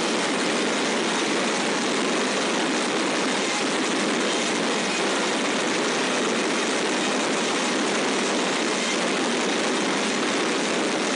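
Fireworks going off at close range in a dense, continuous crackle, steady in loudness with no single bang standing out.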